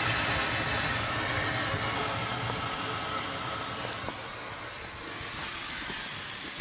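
Steady hiss of steam escaping from the overheated cooling system of a 1952 Dodge Meadowbrook, easing slightly over a few seconds.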